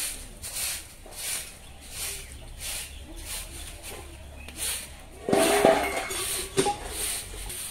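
Soft grass broom swishing across a dusty concrete yard in steady strokes, about one and a half a second. A louder, short sound with a few steady tones cuts in about five seconds in.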